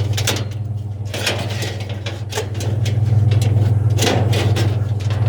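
Scrap metal clanking and scraping as it is shoved into a loaded truck bed, several sharp knocks, over the steady hum of an idling vehicle engine.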